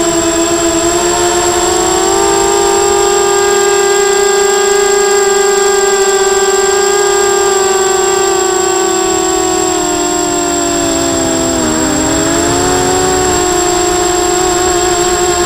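A ZMR250 250 mm quadcopter's four DYS BE1806 2300KV brushless motors spinning 5×3 inch propellers, whining steadily in flight as picked up by the onboard camera. The pitch rises gently over the first few seconds, then dips sharply and briefly about twelve seconds in as the throttle is eased, before settling back.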